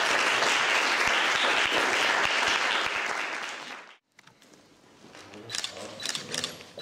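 Audience applauding, fading and cutting off about four seconds in. After that, a few camera shutter clicks.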